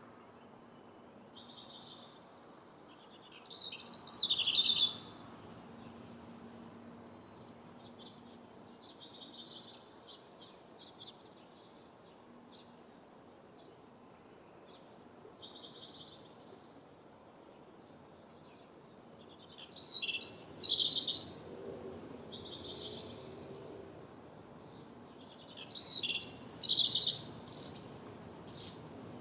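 House wren singing: three loud, bubbling, jumbled song bursts of a second or two each, with softer short chattering notes in between.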